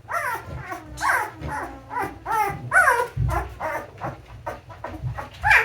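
A two-week-old doodle puppy crying in a string of short, high rising-and-falling whimpers, about two a second, as it protests being held on its back.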